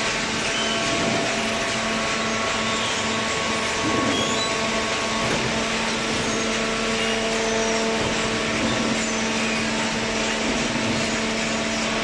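Horizontal hydraulic waste-paper baler and its feed conveyor running: a steady machine hum with several held tones over an even hiss.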